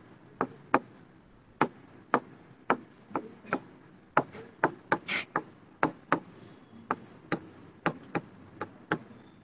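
Chalk writing on a blackboard: an irregular string of sharp taps and short scratches, about two a second, as letters are written out.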